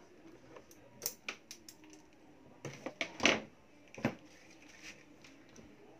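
Scattered small clicks and light knocks of hands handling wires and plastic connectors in a scooter's wiring loom, with a louder knock about three seconds in.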